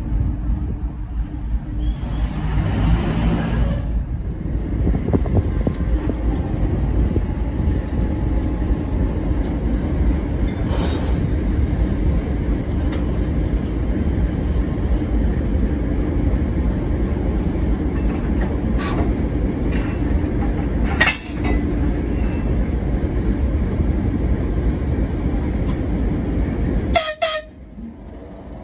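A locomotive and passenger train running with a steady heavy rumble, a short horn sound about two seconds in, and a few sharp knocks later; the sound drops away near the end.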